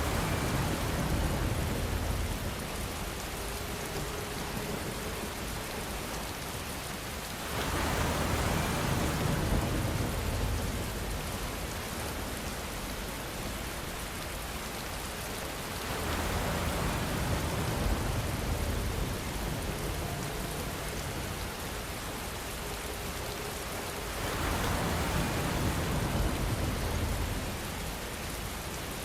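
Steady rainfall, an even dense hiss of drops on surfaces. About every eight seconds it swells louder for a few seconds, with more deep low-end rumble, then settles back.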